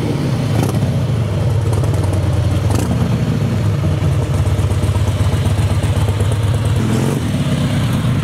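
Cruiser motorcycle engine running at a steady idle, low-pitched with a fast, even pulse.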